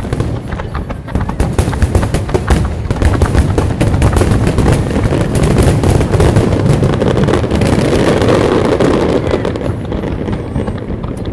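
Aerial fireworks going off in quick succession: rapid pops and bangs that merge midway into a dense, continuous crackling from crackle-effect shells, thinning slightly near the end.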